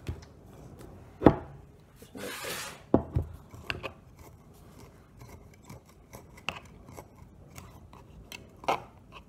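A knife poking and pressing packed ingredients down inside a glass jar of vinegar: scattered clicks and taps of the blade against the glass, with a sharp knock about a second in and a short rustle soon after.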